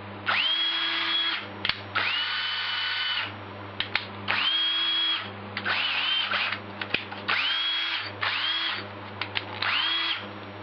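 DeWalt 12-volt 3/8-inch cordless drill run free in about seven short trigger pulls. Each pull spins up quickly to a steady high whine and stops, with small clicks in between. The motor sounds strong.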